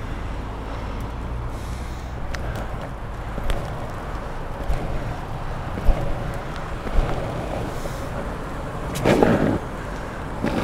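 Longboard wheels rolling over a rough dirt-and-gravel footpath, a steady rumble with road traffic running alongside. A few sharp clicks come in the middle, and a louder rough burst comes about nine seconds in.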